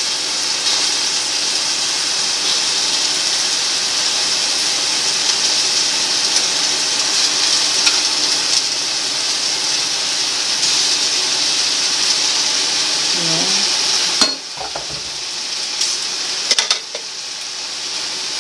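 Onions, tomatoes and ginger sizzling steadily in oil in a stainless steel pan. About three-quarters of the way through, a sharp clack comes and the sizzle drops abruptly as raw chicken pieces go into the pan. Near the end there are a couple of sharp knocks of a wooden spatula on the pan.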